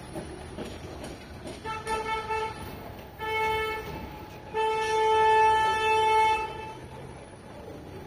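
A vehicle horn honking three times in street traffic, the third honk held for about two seconds and loudest.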